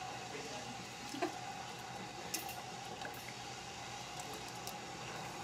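A spoon stirring sliced bamboo shoots in water in a stainless steel pot: faint wet squishing with a couple of light taps, over a steady low hum.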